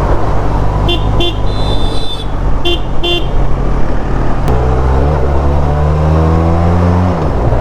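Benelli TRK 502's parallel-twin engine running under the rider, with several short horn beeps and one longer toot in the first three seconds. From about halfway in the engine revs up with a rising pitch, then drops off sharply near the end as the throttle is closed.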